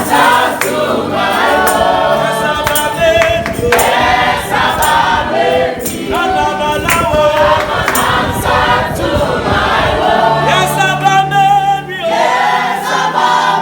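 A choir of many voices singing a gospel worship song over instrumental accompaniment, with percussion keeping a steady beat.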